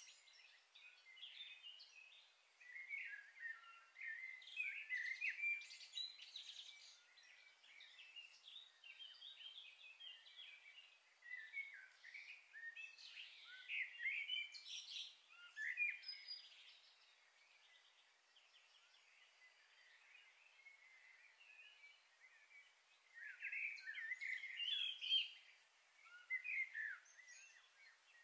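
Small birds chirping and twittering in clusters of short, quick notes, easing to a lull for several seconds past the middle and picking up again near the end.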